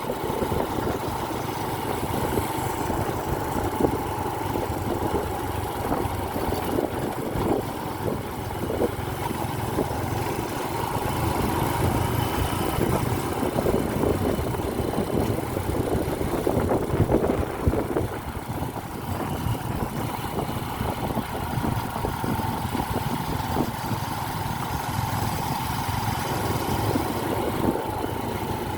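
A motor vehicle engine running steadily, with a faint steady whine and irregular rattling over it.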